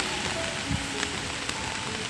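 Heavy rain falling steadily, with a few sharper drip ticks, over faint background music.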